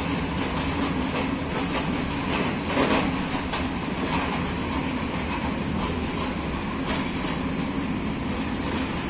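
Freight train of open-top wagons rolling past at low speed, a steady rumble with repeated wheel clicks over the rail joints and a louder clatter about three seconds in.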